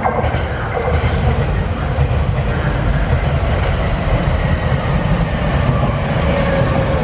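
Tokyo Waterfront Area Rapid Transit 70-000 series electric train pulling into the station. Its wheels rumble on the rails under a whine from the traction motors, which begins to fall in pitch near the end as the train brakes. The noise jumps up sharply at the start as the train comes close.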